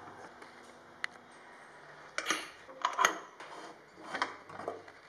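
A handful of light metal clinks and knocks on an aluminium pressure cooker lid as the whistle weight is worked with a metal utensil; no whistle or steam hiss.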